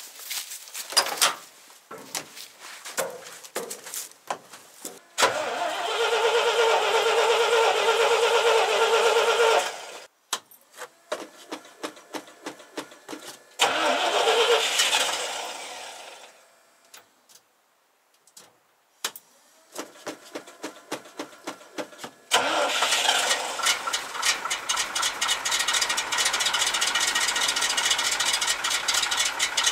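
1981 GMC C7000's 427 big-block V8 being cold-started after sitting since spring: a few clicks and knocks, then several separate bursts of cranking on the starter with pauses between. About three quarters of the way through it catches and keeps running with an even, rapid pulse.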